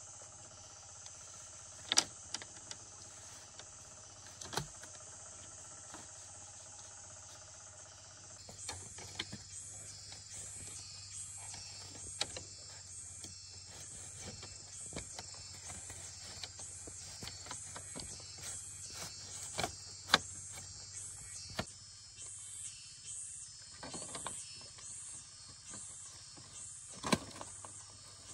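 Insects chirping in a steady high chorus that turns to an even pulsing about a third of the way in, with a faint steady whine underneath at first. A few sharp knocks sound at scattered moments.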